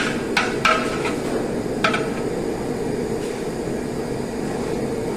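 Metal cooking utensils clanking against a large cooking pot, four ringing knocks in the first two seconds, over a steady rumbling background.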